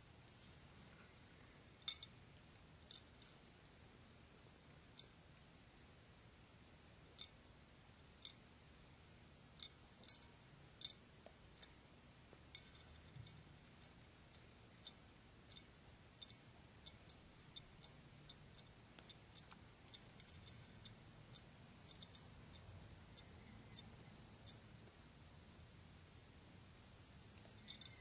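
Mexican jumping beans hopping and rocking on a ceramic plate, giving scattered sharp little clicks. The clicks come a few at a time at first, then more often from about ten seconds in, and thin out near the end. The moth larvae inside, warmed by a lamp, are jerking the seeds.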